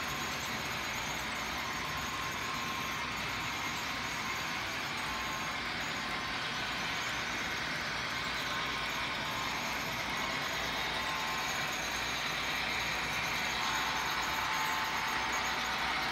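Model freight trains running round a layout: a steady whir of the locomotives' electric motors and wheels on the rails, with a faint whine that comes and goes.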